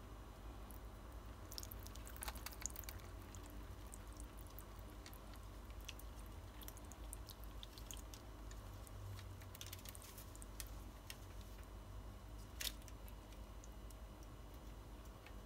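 Faint room tone with a low hum and scattered soft clicks: a few about two seconds in and one a little louder near the end.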